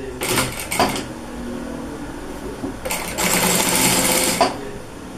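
Sewing machine stitching a folded binding strip onto fabric: a few short bursts in the first second, then a steady run of stitching from about three seconds in that stops about a second and a half later.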